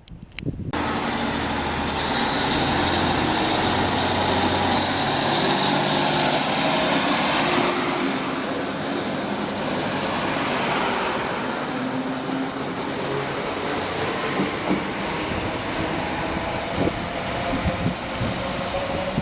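Diesel train running through the station, with its engine giving steady tones over the noise of wheels on rail. The sound starts abruptly within the first second and stays loud throughout.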